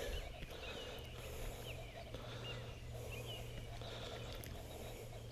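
Faint creek-side ambience: a steady low wash of moving water and background hum, with a few short, faint high chirps scattered through it.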